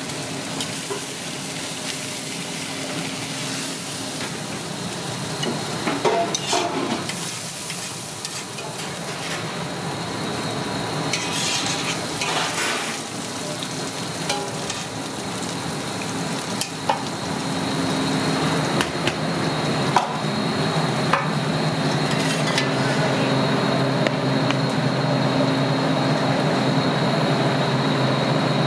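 Thin-sliced steak and onions sizzling on a flat-top griddle, with a metal spatula scraping across the griddle a few times and sharp clicks of metal tongs.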